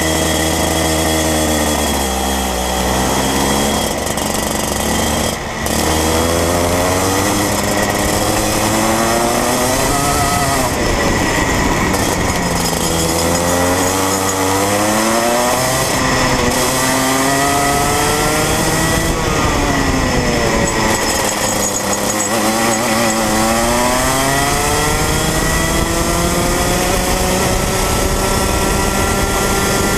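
Rotax Mini Max 125cc two-stroke kart engine heard onboard, rising in pitch as the kart accelerates along the straights and dropping sharply off throttle into the corners, three times, climbing and levelling off at full speed near the end.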